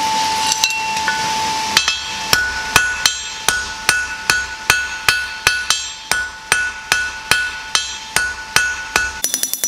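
Hand hammer striking a red-hot square steel bar on an anvil. From about two seconds in there is a steady run of blows, about two and a half a second, each with a bright ring from the anvil. A steady hiss comes before the first blow, and near the end the blows turn much quicker and lighter.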